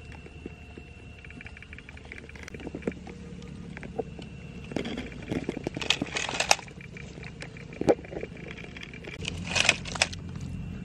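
Rustling, scraping and clicking of a wire-and-bamboo frog trap and grass being handled in mud, with louder rustling bursts around the middle and again near the end, over a faint steady high tone.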